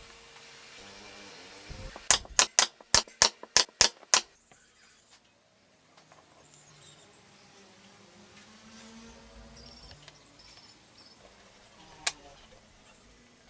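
A quick run of about eight sharp knocks, roughly four a second, then one more single knock near the end.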